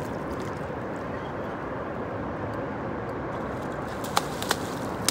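Hooked fish thrashing and splashing at the water's surface, over a steady rumble of traffic on the bridge overhead; two sharp slaps come about four seconds in.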